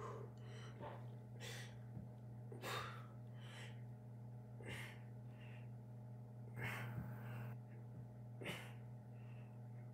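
A man breathing hard in short, sharp breaths roughly once a second, from the effort of doing push-ups without stopping, over a steady low hum.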